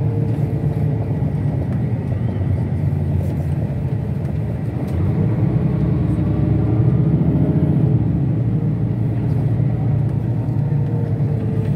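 Steady rumble of a moving airport transfer bus heard from inside the cabin, engine and tyre noise together, swelling a little in the middle.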